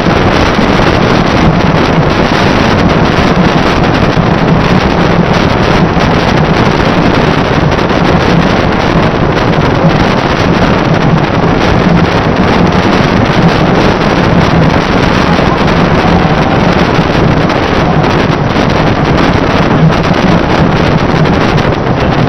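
Strong storm wind buffeting the microphone: a loud, steady rush of wind noise with a low hum underneath.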